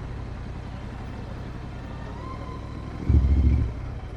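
Royal Enfield Interceptor 650's parallel-twin engine running low and steady, with one short, louder burst of revving a little after three seconds in.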